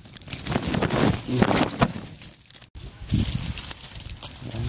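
Thin blue plastic banana bunch cover crinkling and rustling as it is pushed aside and rubs against the phone, a dense rough crackle. It eases off about two seconds in, cuts out sharply for an instant, then rustles again briefly.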